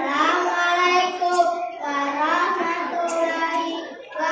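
A group of young children singing together in unison, in phrases of held and sliding notes, through a stage microphone.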